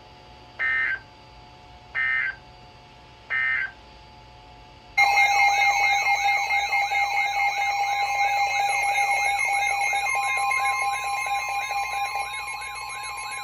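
Emergency Alert System tones: three short buzzing digital data bursts (the end-of-message code) closing the previous warning. About five seconds in, a loud alert tone starts and holds steady, with a warbling, rapidly sweeping tone layered over it.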